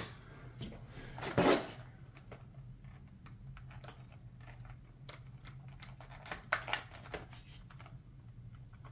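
A hobby knife slitting tape on a clear plastic clamshell package, with scattered light clicks and scratches of the blade and the stiff plastic being handled. There is a louder burst of handling noise about a second and a half in and a few sharper clicks near the end.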